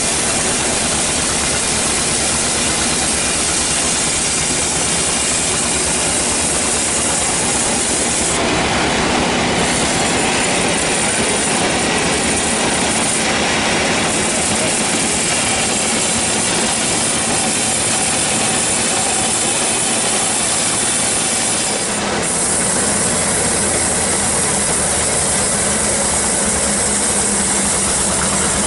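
Band sawmill running and cutting through a teak log: a loud, steady mechanical noise that shifts in tone about eight seconds in and again about twenty-two seconds in.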